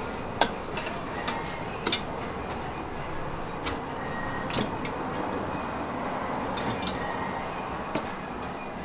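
Steady background noise with about seven sharp clicks spread through it: metal tongs knocking against a stainless steel food pan of fried chicken.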